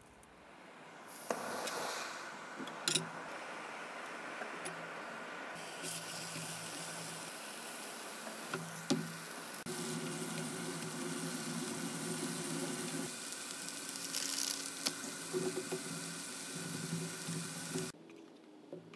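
Seasoned venison backstrap slices sizzling steadily as they pan-fry in a small camp frying pan over a canister gas stove, with a few taps and scrapes of a wooden spatula stirring them. The sizzle cuts off suddenly near the end.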